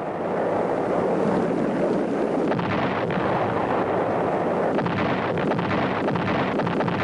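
A continuous rumble of heavy high-explosive bombs going off, with crackling, as B-52 bomb loads strike the ground.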